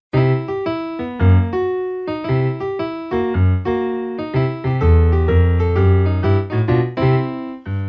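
Instrumental music: an electronic keyboard playing a quick melody of short notes over low bass notes, starting suddenly after a brief silence as a new song opens.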